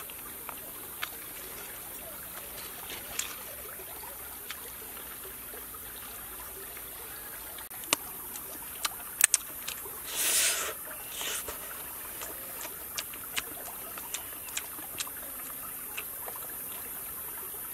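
Close-up eating sounds: a person chewing and smacking his lips over mouthfuls of fish, in short sharp clicks scattered through, with one longer, louder noise about ten seconds in. Beneath them, the steady trickle of a shallow stream.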